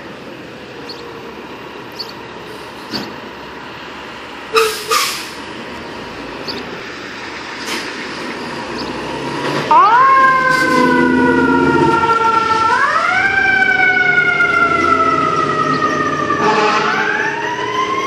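Fire engine siren wailing from about ten seconds in, its pitch rising quickly then falling slowly in cycles of about three seconds: the truck is responding to an alarm. Before that, street noise with two short loud bursts about four and a half seconds in.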